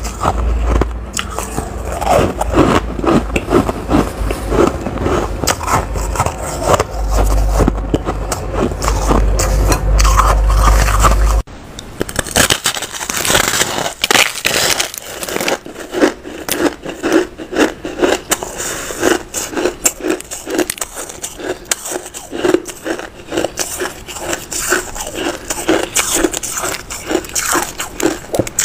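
Close-up biting and chewing of white, snow-like frozen ice: dense, rapid crunching and crackling. A low hum under the first part stops at a cut about eleven seconds in, after which a different eater bites a large ball of white ice.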